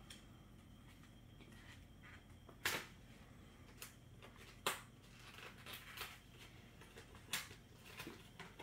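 Clear plastic bags and packaging of LEGO bricks crinkling and rustling as they are handled on a table, with scattered sharp crackles and clicks, three of them much louder than the rest.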